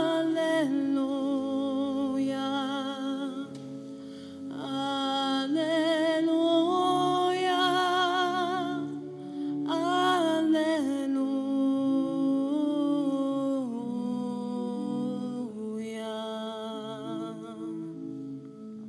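Background music: a wordless vocal melody sung with vibrato in long held phrases over sustained chords.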